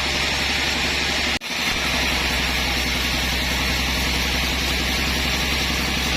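Sawmill machinery running steadily: a constant low hum under a loud hiss. The sound cuts out for an instant about a second and a half in, then resumes unchanged.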